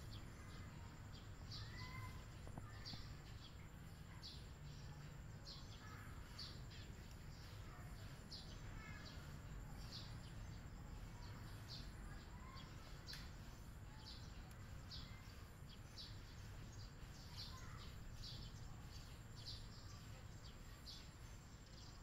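Small birds chirping faintly: a short high chirp about once a second, with a few lower call notes, over a steady low background rumble.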